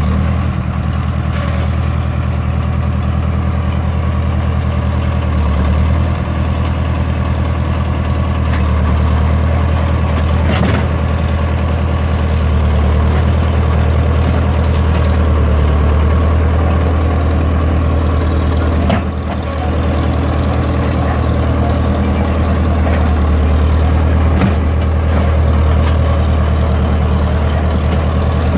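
International Harvester TD-9 crawler dozer's diesel engine running steadily as the dozer creeps forward pushing dirt with its blade, with a few brief knocks along the way.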